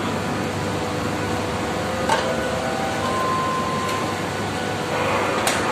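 Steady, even noise of running air-conditioning plant, with a light click about two seconds in and a sharper click near the end.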